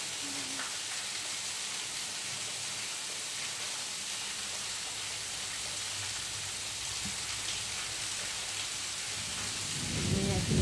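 Steady rain-like hiss with no clear pattern. A louder low sound begins near the end.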